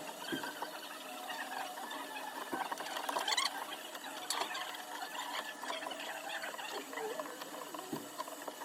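Close-up scratching, scraping and light ticking of small hand tools working on an iPhone's back during a back-glass replacement, with a few soft knocks.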